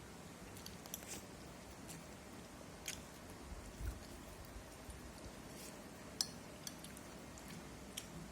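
Quiet chewing of fish cake (model ikan and pempek), with scattered sharp clicks and clinks of eating utensils, the sharpest about six seconds in, and a soft low thump near the middle.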